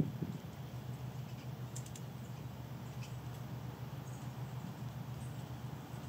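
A steady low background hum with a few faint light ticks about two seconds in and again around three seconds.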